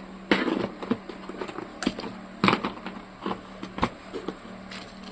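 Handling noises: a brief rustle, then a few sharp knocks and clicks of hard objects being handled, over a steady low hum.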